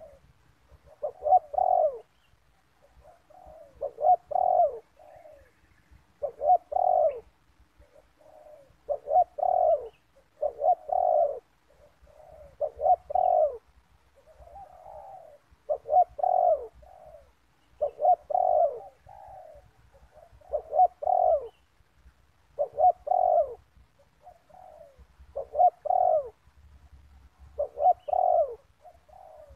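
Spotted dove cooing: a repeated multi-note coo phrase about every two to two and a half seconds, with fainter coos in the gaps between the loud phrases.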